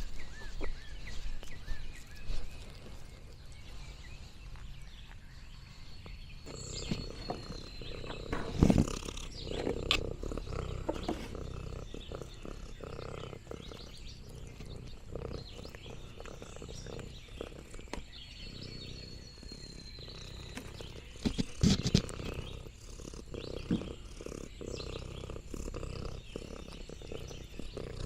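Domestic cat purring close to the microphone, with scattered clicks and rustles and a couple of louder knocks, one about nine seconds in and another a little past twenty seconds.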